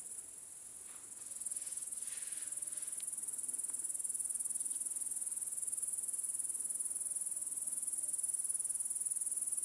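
Crickets chirring in a steady, high-pitched chorus that grows a little louder about a second in.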